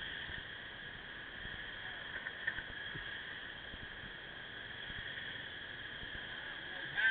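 Steady hiss of wind and road noise from a moving motorcycle, heard thinly through a low-grade camera microphone, with a brief sharper sound about two and a half seconds in.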